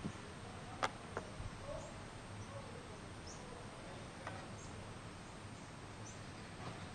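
A few light clicks and taps of a hand trowel working roofing tar at metal flashing, the sharpest about a second in, over faint outdoor ambience with small, high bird chirps.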